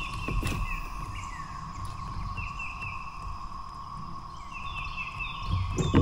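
Steady, unbroken drone of a periodical cicada chorus, with a songbird singing series of short repeated chirps over it. Low rumble throughout, with a louder thump near the end.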